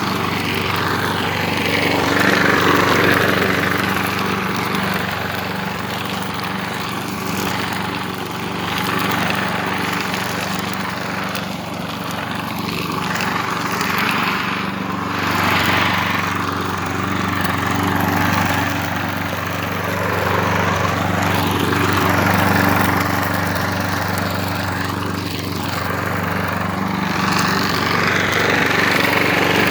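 Gasoline engine of a Craftsman lawn mower running steadily while mowing, rising and falling a little in loudness every few seconds.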